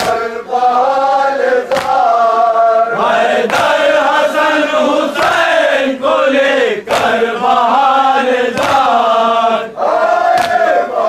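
A crowd of men chanting an Urdu nauha (mourning lament) in unison, with a loud collective slap of hands on chests (matam) falling in time about every 1.7 seconds.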